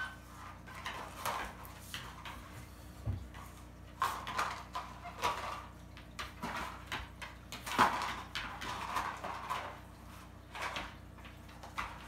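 Dog pawing and nosing a small taped cardboard food puzzle box across the floor: irregular scrapes, taps and knocks of the light cardboard, with a low thump about three seconds in and a sharper knock near eight seconds.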